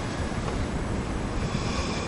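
Wind buffeting the microphone: a steady rushing noise with a heavy, gusting low rumble.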